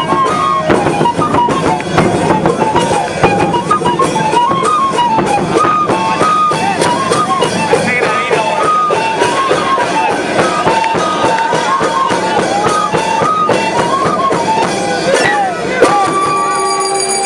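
Music: a melody over strummed guitar and drums, with a steady beat.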